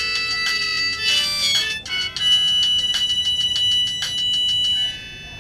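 Samsung SGH-T509 mobile phone ringtone playing through the phone's speaker: a bright electronic tune of quick, pulsing notes that stops about five seconds in.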